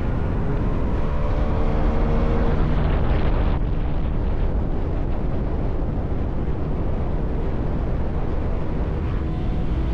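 Yamaha R1 inline-four engine through an SC Project exhaust, running under way. The engine note rises for a second or two near the start, changes abruptly about three and a half seconds in, then holds steady.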